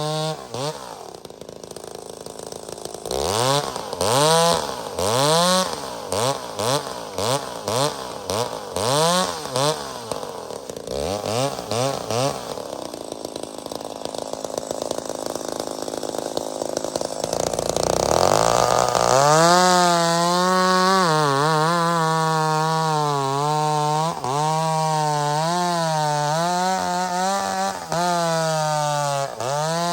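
Vintage 50-year-old McCulloch two-stroke chainsaw running: it drops back to idle, is blipped on the throttle a dozen or so times in quick succession, idles, then is held at full throttle with its pitch repeatedly sagging and recovering.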